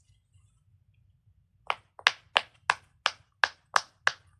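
A fidget toy being worked by hand: a run of about nine sharp pops or clicks, roughly three a second, starting a little over a second and a half in.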